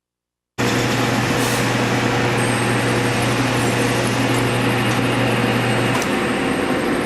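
Metal lathe running in a machine shop: a loud, steady machine noise that starts abruptly about half a second in, with a low hum that drops out about six seconds in.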